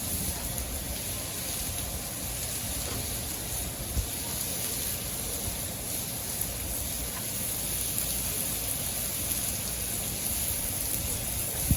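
Food sizzling on a Blackstone propane flat-top griddle: a steady hiss, with a single sharp tap about four seconds in.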